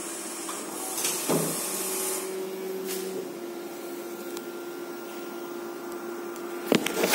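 AGFA Drystar 5302 dry film printer running with a steady mechanical hum and a held tone. About a second in there is a burst of whirring hiss with a clunk. A few sharp clicks come near the end.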